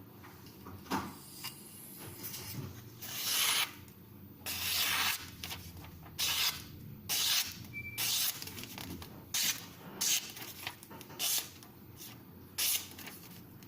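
A pocket-knife blade being stroked across an oilstone, about ten short, scraping hisses at uneven spacing.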